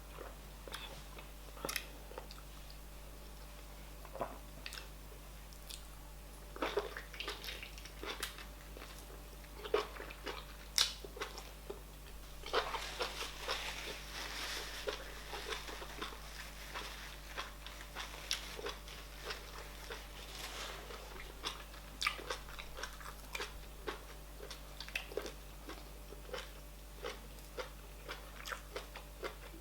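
Close-miked chewing of fufu and oha soup: a steady run of irregular mouth clicks and chewing noises, busiest around the middle, over a faint steady low hum.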